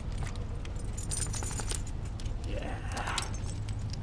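Small metal pieces jingling in many quick, light clicks over a steady low rumble, with a short gliding sound about two and a half seconds in.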